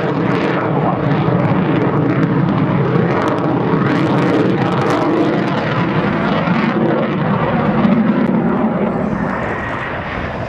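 Panavia Tornado GR4 jet noise from its two RB199 turbofans as it flies overhead: a loud, steady, dense rumble that eases off slightly near the end as the aircraft draws away.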